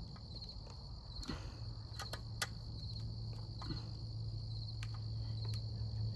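Insects chirping, a steady high trill pulsing in short repeated groups, with a few light clicks and a low hum that comes in about one and a half seconds in.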